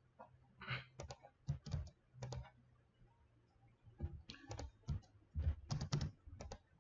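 Computer keyboard typing and mouse clicks: quick, light key presses and clicks in two runs, with a pause of about a second and a half between them.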